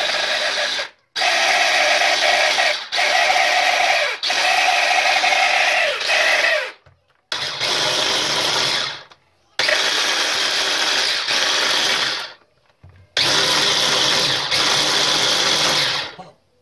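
Electric hand blender running on its chopper-bowl attachment, chopping unripe sour grapes (koruk) to a pulp. It runs in repeated pulses of one to three seconds with short stops in between.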